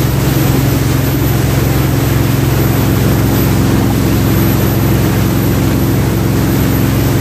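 Jet boat's engine running steadily: a constant low drone with an even rushing noise over it.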